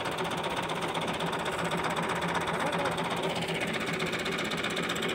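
Tractor's diesel engine running with a rapid, steady clatter.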